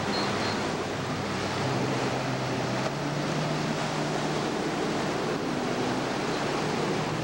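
Surf washing on the beach and wind buffeting the microphone, with the low, steady hum of a motorboat engine coming in about a second and a half in.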